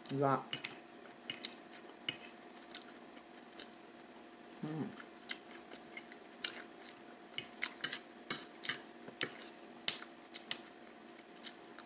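A metal fork clicking and scraping against a plate in short, irregular taps while food is picked up, with a brief hummed "mm" near the start and again about five seconds in.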